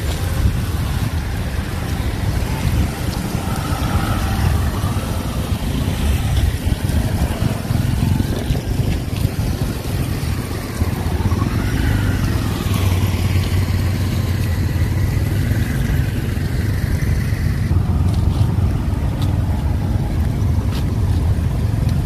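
Steady low rumble of vehicle noise, with faint wavering higher tones over it now and then.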